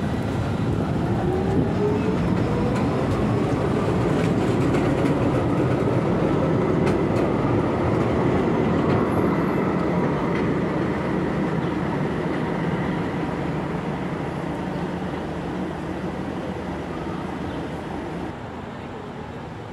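Strasbourg tram running past the platform, its electric traction motors giving a whine that climbs in pitch over the first few seconds as it gathers speed, over a steady rolling rumble from the wheels on the rails. The sound eases off over the second half as the tram moves away.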